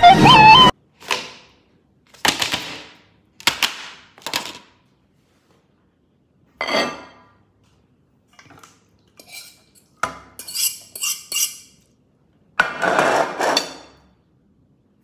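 Ceramic plates and a metal fork knocking and clinking on a table in separate single strokes, with a quick run of clinks about ten seconds in. The music from the start ends in the first second.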